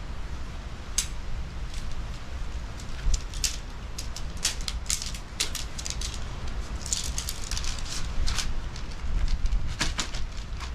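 Shock-corded metal tent pole sections clicking and clacking as they are pulled apart and folded into a bundle, in irregular clusters of sharp clicks. A steady low rumble runs underneath.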